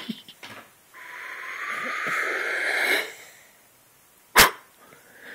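A baby's breathy, squealing vocalisation lasting about two seconds, growing louder and then cutting off abruptly. A single sharp click follows about a second later.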